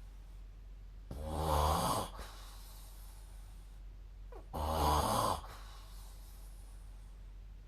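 A sleeping person snoring: two snores about three seconds apart, each lasting about a second, with quiet breathing between.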